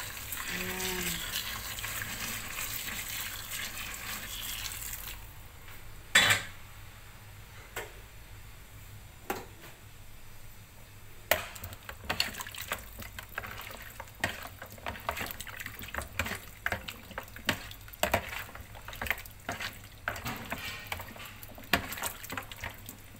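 Hot water poured over chicken feet in a plastic basin to scald them, a steady splashing hiss that stops about five seconds in. A single loud knock follows. Then a metal spoon stirs the feet around in the water, with many irregular clicks and clinks against the basin.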